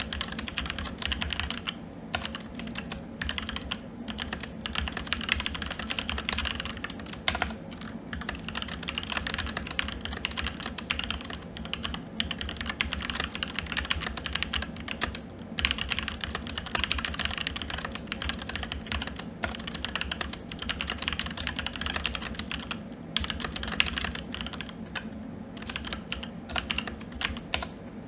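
Continuous fast typing on a SteelSeries Apex 7 TKL mechanical keyboard with red linear switches: a dense run of key clacks, broken by a few brief pauses.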